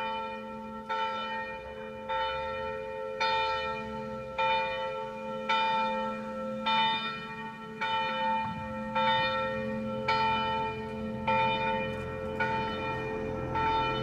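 Church bell "Maryja", a roughly 500 kg bronze bell cast in 1971 by the Jan Felczyński foundry in Przemyśl, with its strike note on A, swinging and tolling the noon ringing. Its clapper strikes about once every second, and each stroke rings on into the next.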